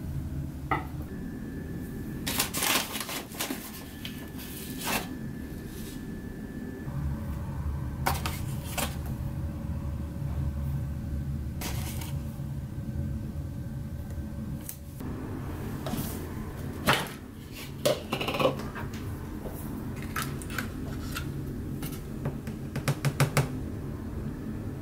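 Clicks and knocks of a spoon and kitchenware as ingredients are spooned into a glass mixing bowl and scooped from a cornflour tin, with a quick run of taps near the end, over a steady low hum.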